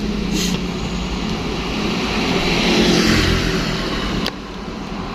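A truck passing at speed along the road: engine and tyre rush swelling to a peak about three seconds in, then falling off sharply.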